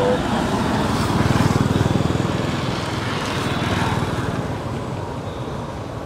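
A small-engined vehicle running close by with a fast, even putter, loudest a second or two in and then fading away as it passes.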